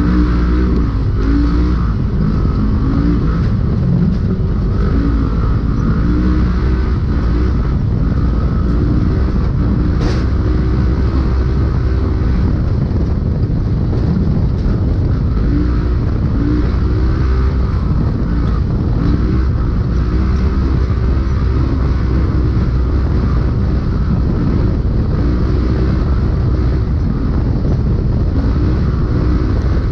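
Polaris RZR UTV engine running hard at race pace, heard from inside the vehicle, its revs rising and falling continually along with a heavy rumble from the chassis and terrain. A brief sharp knock about ten seconds in.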